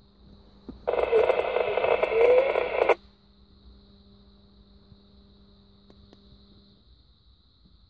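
Burst of radio noise from a handheld transceiver's speaker, lasting about two seconds. It starts and cuts off abruptly, as when the receiver's squelch opens and closes.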